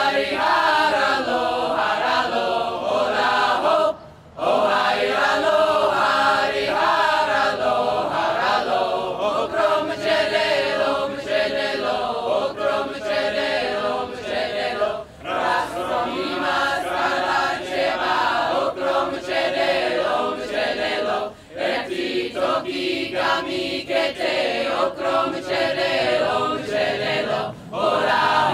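A large mixed choir of men and women singing together. The singing breaks off briefly between phrases about 4, 15 and 21 seconds in.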